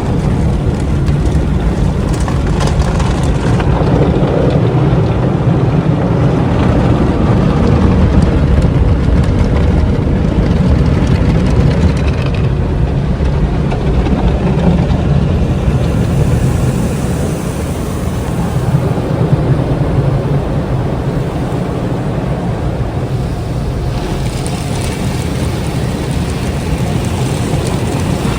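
Car-wash water spray beating steadily against a car, a loud continuous rushing whose hiss shifts a little around the middle and again near the end. It is a test of whether a repainted door is sealed against the water.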